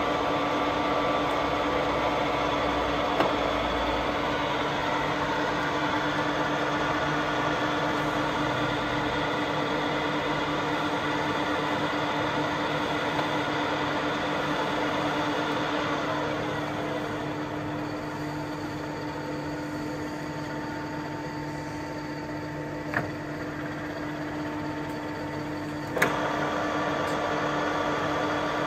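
Baoji CS6250B geared-head lathe running, its 7.5 kW motor and headstock gearing giving a steady mechanical hum with a constant tone. The hum eases off a little past halfway, and a few sharp clicks stand out.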